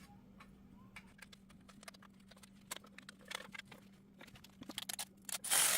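Light, irregular metallic clicks and taps of tools and hardware as the brake dust shield's 10 mm bolts are fitted, with a louder scraping rustle near the end.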